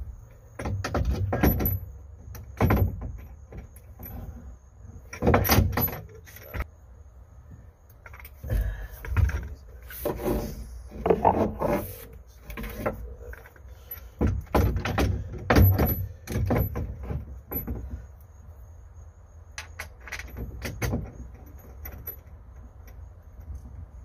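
Metal hardware and tools clinking and rattling in irregular knocks and clatters as a rotary steering helm is worked into place behind a boat's dash.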